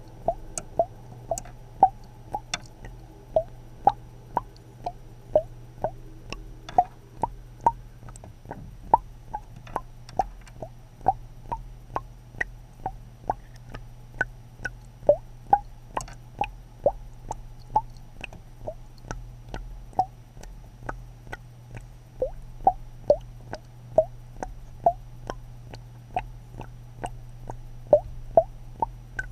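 Water dripping or plopping in steady drops, about two a second, each a short pitched plink, over a low steady hum.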